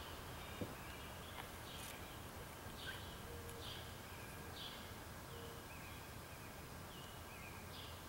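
Backyard songbirds chirping faintly, short calls repeating about once a second, over a steady low outdoor background hum.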